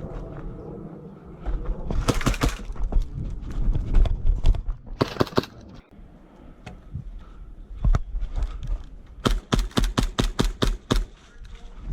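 Bursts of sharp knocks and thuds: a short cluster about two seconds in, another around four to five seconds, and a fast, even run of about six knocks a second from about eight seconds to eleven.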